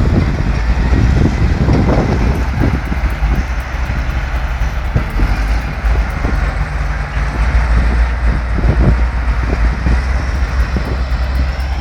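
Heavy machinery engine running with a steady low rumble, with scattered knocks and clanks over it.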